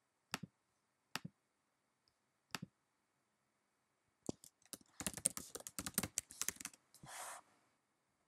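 Mouse clicks, three single clicks, then a quick run of key presses on a computer keyboard as a password is typed in. A brief soft rush of noise follows near the end.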